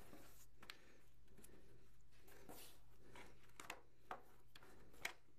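Faint rustling and soft ticks of laces being pulled tight and hooked around the lace hooks of a hiking boot.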